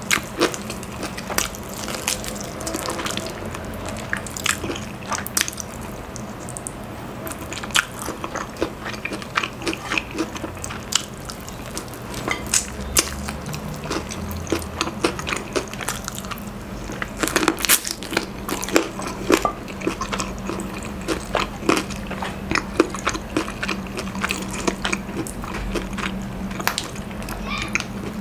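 Close-up eating of crispy Popeyes fried chicken: the breaded skin crunching and crackling in many short irregular bites, with chewing and mouth sounds in between.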